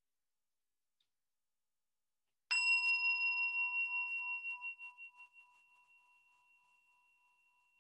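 A meditation bell struck once, about two and a half seconds in, ringing with a few clear high tones that slowly die away, the lower tone pulsing as it fades.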